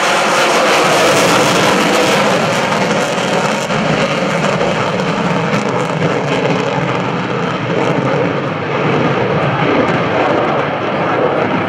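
Lockheed Martin F-35C Lightning II's F135 afterburning turbofan at full power in afterburner: a loud, steady jet roar as the fighter climbs away, the highest hiss easing off after about four seconds.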